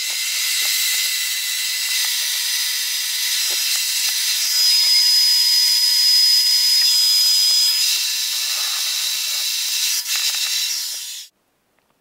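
Electric drill running steadily for about eleven seconds as it drills holes into the wall for wall plugs, a continuous whirring noise with a thin motor whine, cutting off suddenly near the end.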